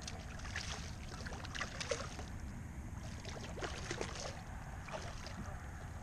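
A hooked redfish (red drum) splashing and thrashing at the surface beside a kayak as it is brought to the landing net: irregular small splashes and sloshing water.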